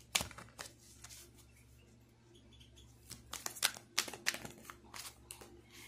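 Tarot cards being handled: a scatter of soft clicks and rustles, a few near the start and a busier run about three to four and a half seconds in.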